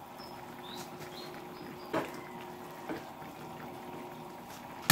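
Pot of simmering soup being stirred with a ladle after crushed tomatoes are tipped in: a low steady background with a sharp knock of the ladle against the pot about two seconds in and a lighter one about a second later.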